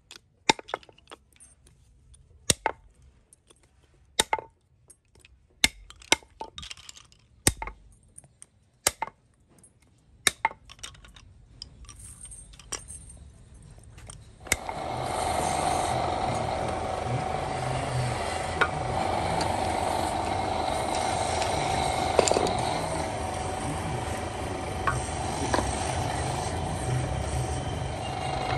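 Sharp clinks and knocks, one every second or so, as rubber and metal rings are handled and fitted onto wooden rods. About halfway through these give way to a steady hum with a held tone: a small electric motor running a makeshift lathe.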